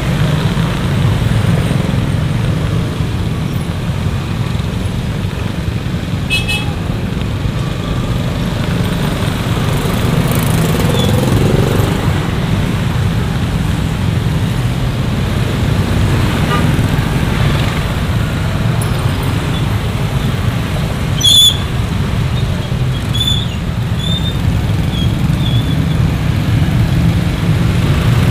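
Motorcycle and scooter traffic crawling through a narrow lane: a steady low engine rumble, with a short horn toot about three quarters of the way in and a few brief high beeps after it.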